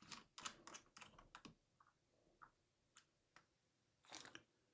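Faint small clicks and taps of an M.2 SSD and hardware being handled and seated in a laptop's open chassis. The clicks come in a quick cluster at first, then a few scattered ones, then another short cluster near the end.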